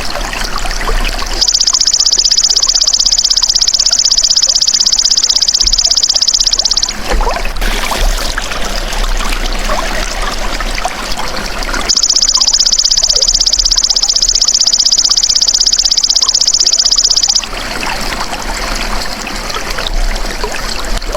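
Belalang emas (golden grasshopper) insect calling in two long, even, high-pitched buzzing trills of about five seconds each, over a steady trickle of running water.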